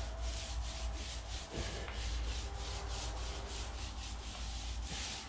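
Small paint roller worked back and forth over a floor, spreading wet epoxy primer: a quick, rhythmic rubbing swish, several strokes a second.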